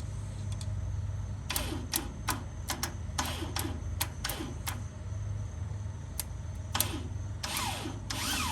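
Starter of a 1998 Cub Cadet riding mower being tried: a run of irregular sharp clicks, then near the end a brief spin with a falling whine as the starter turns without engaging the engine. A steady low hum runs underneath.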